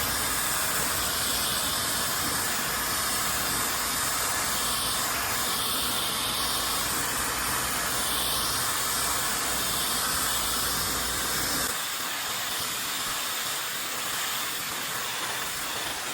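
Yoole plasma high-speed hair dryer blowing air, a steady rushing hiss. About twelve seconds in, the low rumble drops out and it gets slightly quieter.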